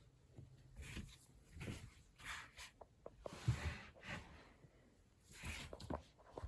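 Soft rustling and rubbing from stuffed toys being handled, with scattered light clicks and a dull bump about three and a half seconds in.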